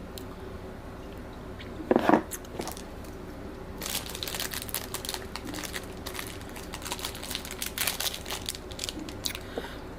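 Crinkling of a plant-based chocolate bar's wrapper, a dense run of sharp crackles from about four seconds in until shortly before the end. A brief louder sound comes about two seconds in.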